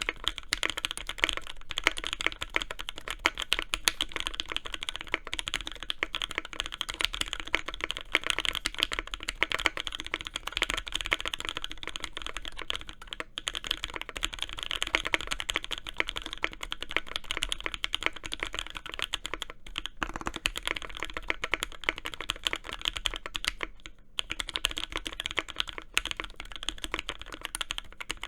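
Typing test on a Velocifire S58 60% custom mechanical keyboard, burger-mounted on rubber O-rings with packing foam under the PCB, fitted with Mauve linear switches lubed with 205g0 and filmed, and GMK Olivia keycaps: a fast, continuous run of keystrokes, with brief pauses about 13, 20 and 24 seconds in.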